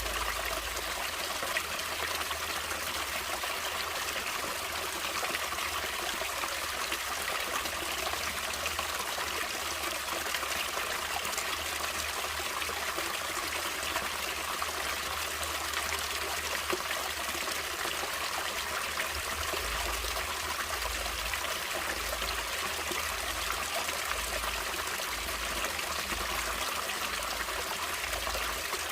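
Stream water flowing and trickling steadily, an even rushing hiss with no change in level.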